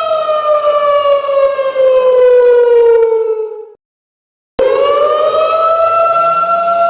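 Siren wailing: its tone slides slowly down for about three and a half seconds, cuts off abruptly into silence for under a second, then starts again, rising back up and holding a steady pitch.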